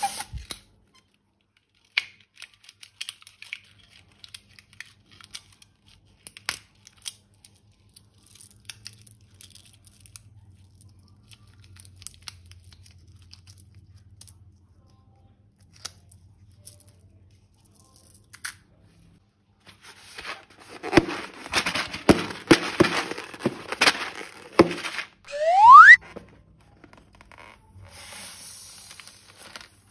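Slime being squeezed and mixed by hand: scattered small clicks, then several seconds of dense crackling and crinkling. Near the end comes a short rising whistle sound effect.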